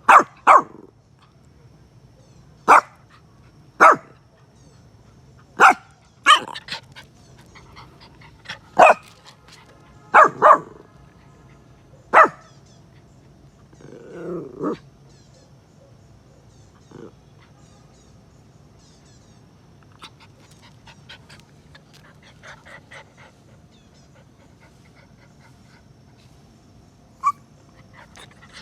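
A dog barking in single sharp barks, about a dozen in the first half, with a longer, lower sound around the middle. After that it is mostly quiet, with one last bark near the end.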